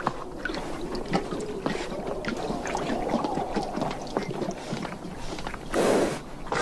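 Feral Namib desert horses at a waterhole: irregular hoof knocks with splashing and stirring of water, and a short loud rush of noise near the end.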